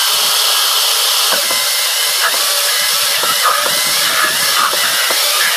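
Electric facing tool (reamer) on a butt-fusion jig, running steadily as it trims the ends of blue plastic Aquatherm pipe square for fusing.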